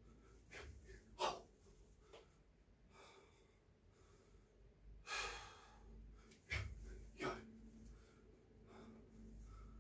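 A man's audible breaths and sniffs: several short ones, loudest just over a second in, and a longer exhale about five seconds in.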